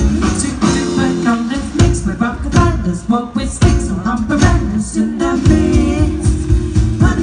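Live close-harmony swing: three women singing together with vibrato, backed by electric guitar, double bass and drums.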